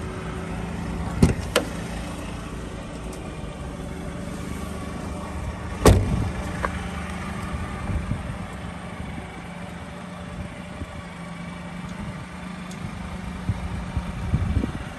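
Supercharged 1988 Mitsubishi Minicab kei truck's engine idling steadily. Two sharp clicks come about a second in, and a louder thump near the middle.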